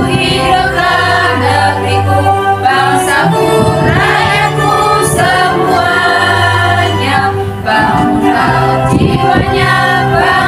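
Women's choir singing a song together, with long held low bass notes beneath the voices that change pitch every few seconds.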